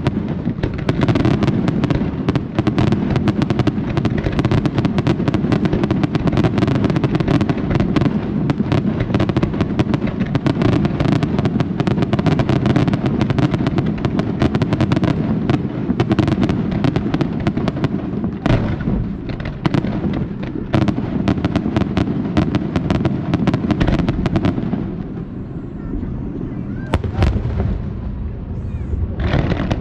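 Fireworks display: a dense, rapid barrage of bangs and crackles that thins out to scattered bangs about three-quarters of the way through, with a strong bang near the end.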